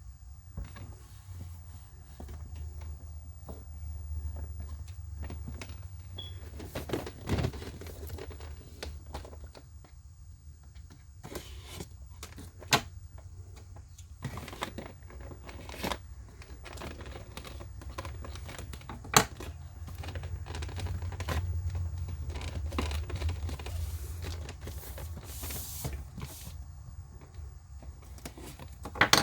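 Cardboard and plastic packaging of a boxed action figure being handled and opened: rustling and crinkling with scattered clicks and knocks, and a few sharper snaps.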